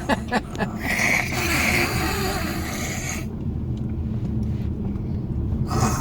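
A young child making a breathy, hissing monster noise for about three seconds, then again briefly near the end, over the steady low rumble of a moving car's cabin.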